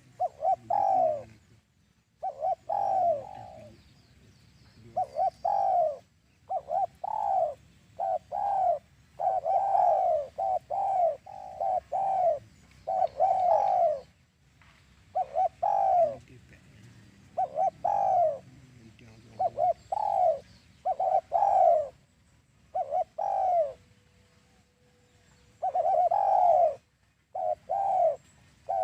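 Spotted doves cooing: repeated coo notes in runs of two to four, with short pauses between the phrases.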